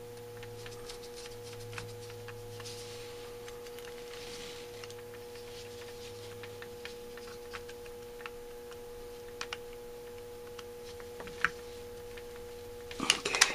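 A steady electrical hum holding one constant tone, with a few faint clicks of a screwdriver turning a small screw in a metal carburetor choke housing, and a quick run of louder clicks near the end.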